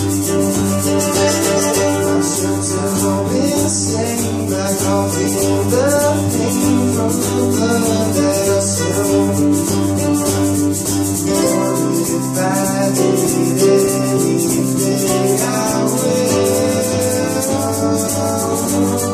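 Live acoustic band playing: strummed acoustic guitars under a steady, fast shaker rhythm, with a voice singing. The low bass notes drop out for a few seconds past the middle, then return.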